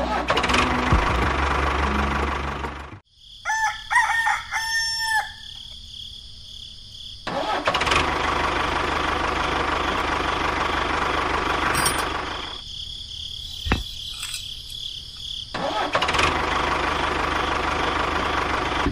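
A rooster crows about three and a half seconds in. Around it runs a steady rushing mechanical noise that stops for a few seconds twice.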